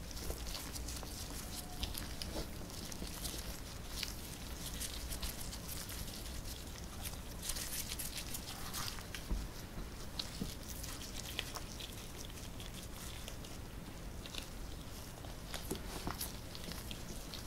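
Gloved hands rolling sticky rice-cake balls through crumbly bean-powder coating on a metal tray: soft crumbly rustling with many small irregular taps and pats.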